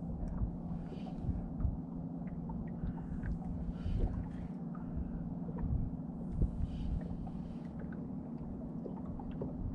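Quiet ambience aboard a small boat on calm water: a steady low hum with low wind rumble on the microphone, and soft swishes about every three seconds.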